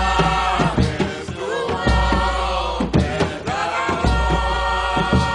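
Rastafari devotional music: voices chanting held notes over a drum beat and deep bass.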